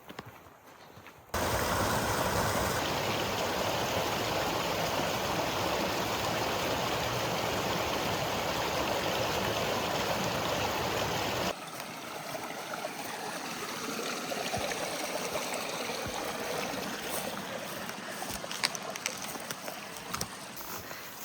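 Stream water rushing, loud and even. About halfway through it cuts abruptly to a quieter, steady rush of water with a few light clicks and knocks scattered through it.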